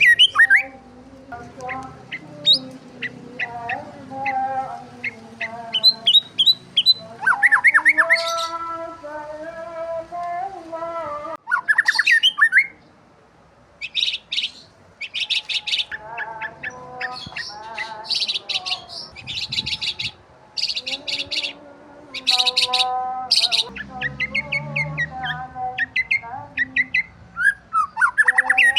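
Several birds chirping and calling at once: rapid high chirps and trills mixed with longer, lower squawking calls, and for several seconds in the middle a run of short, high calls repeated about twice a second.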